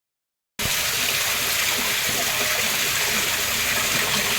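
Water rushing steadily, starting suddenly about half a second in.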